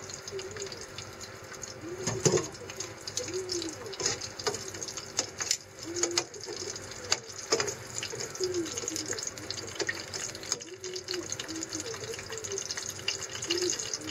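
Cooking oil sizzling in a frying pan around garlic cloves, ginger and a dried chili, with a steady hiss and scattered sharp crackles and pops. Tongs touch the pan now and then.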